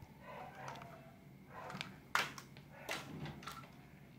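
Small plastic toy trucks knocking and clacking as they are picked up and set down on a tabletop, with two sharp knocks about two and three seconds in.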